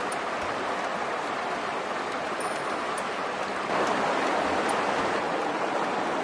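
Steady rush of water running over the stones of a shallow rocky stream, getting a little louder just before four seconds in, with a few faint clicks.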